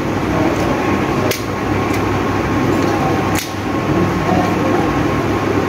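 Large spinning fishing reel cranked by hand, its rotor whirring steadily over a steady room hum. Two sharp clicks come about a second and about three and a half seconds in.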